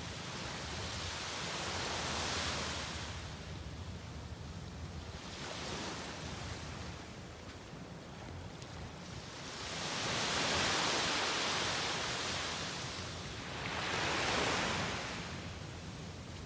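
Small waves breaking and washing up on a sandy beach: a hiss of surf that swells and fades, loudest about ten seconds in and again near fourteen seconds.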